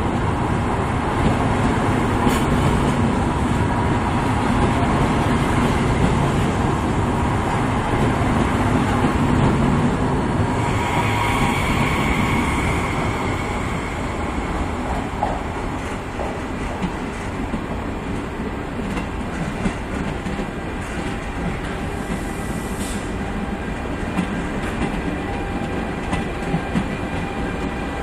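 Trains rolling slowly through a station, wheels running over the rails with some clicking from the joints. First a Frecciarossa 1000 (ETR 1000) electric high-speed train passes, with a high steady squeal for a few seconds about ten seconds in. Later the running is quieter as a train hauled by an E464 electric locomotive passes.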